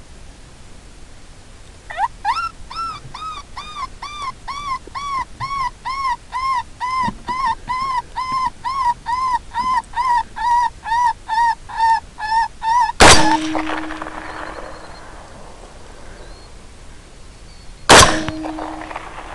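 A predator call gives rapid, evenly spaced yelps, about two and a half a second, imitating a coyote in distress; it starts about two seconds in and stops after some ten seconds. Then come two rifle shots about five seconds apart, each a loud crack with a ringing tail.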